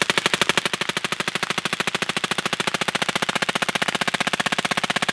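Suppressed full-auto 5.56 AR-15-type rifle firing one long unbroken burst at about fourteen shots a second, fed from an MWG 90-round drum magazine that cycles without a stoppage.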